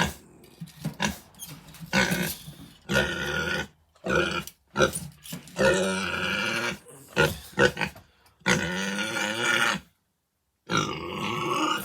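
A pig giving a series of drawn-out pitched grunting calls, about half a second to a second and a half each, with short pauses between.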